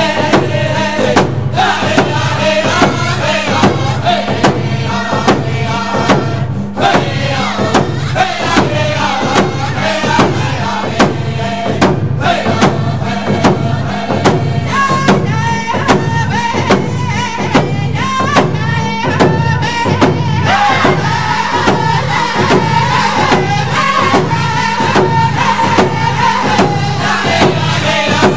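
Music: a group of singers chanting in unison over a steady, even drumbeat, in the manner of a Cree drum song.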